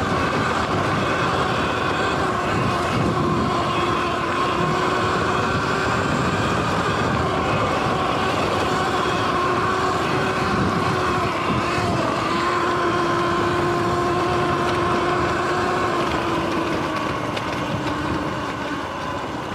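Sur-Ron electric dirt bike's motor and drivetrain whining steadily at speed, with a rush of wind and tyre noise over grass. Near the end the whine drops slightly in pitch and the sound gets a little quieter.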